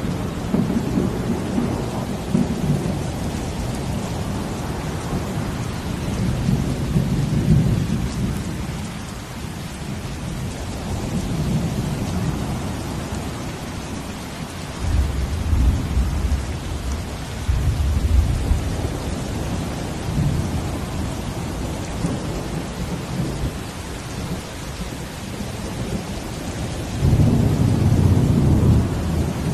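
Steady rain with ocean waves, and deep low rumbles that swell and fade a few times, the strongest near the end.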